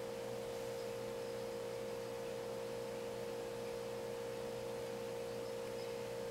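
A steady, even hum at one mid pitch, with fainter steady tones beneath it and no other sound.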